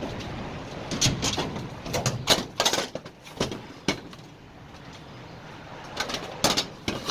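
Irregular clanks and knocks of dryer parts being handled during disassembly, in two bursts of clatter, one about a second in and one near the end.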